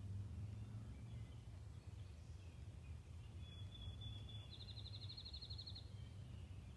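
A small songbird singing about three and a half seconds in: a few short notes and a held high whistle, then a fast trill lasting just over a second. Under it runs a faint steady low rumble.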